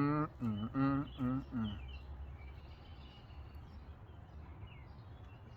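A man's voice for the first couple of seconds, then a faint steady background hum with a few faint bird chirps.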